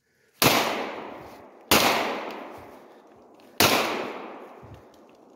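Three pistol shots from a Glock 19 9 mm handgun, spaced a little over one and then about two seconds apart, each followed by a long echo dying away.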